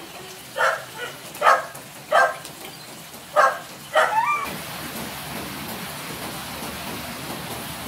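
Dogs barking about five times, the last bark trailing into a short wavering whine; about four and a half seconds in the barking cuts off and a steady hiss of rain takes over.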